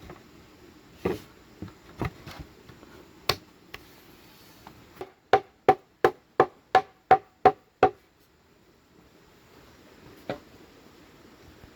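A tool striking bamboo during bed-building: a few scattered knocks, then a run of eight quick, even strikes, about three a second, each with a short ring.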